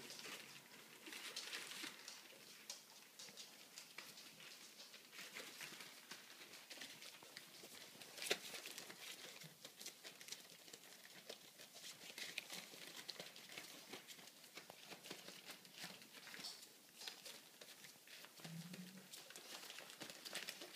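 Puppies scrabbling and tussling on newspaper: a faint patter of small paws and crinkling paper, with a single sharp click about eight seconds in and a short low-pitched noise near the end.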